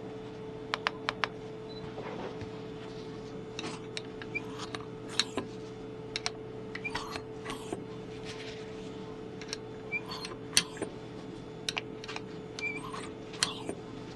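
Irregular sharp clicks and light knocks from a Keihin CVK carburetor set being worked by hand, over a steady hum.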